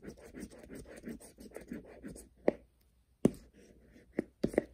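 A scratch-off lottery ticket being scraped rapidly with a hand-held scraper, about eight short strokes a second, which stop a little over two seconds in. Several sharp taps follow.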